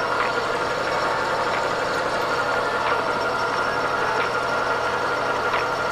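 Metal lathe running steadily, its chuck spinning a stainless steel rifle barrel while a carbide tool turns down the muzzle end: a steady machine whine and hum, with a faint tick about every second and a third.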